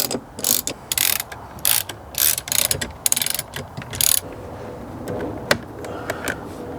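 Hand tool ratcheting as screws are driven into a car door panel: a quick series of sharp ratchet strokes for about four seconds, then a quieter stretch broken by a few single clicks.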